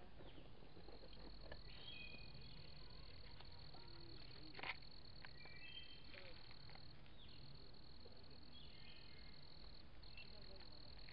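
Faint evening insect chorus: a steady high-pitched trill of insects, with a few short chirps scattered through it and a single sharp tap about halfway.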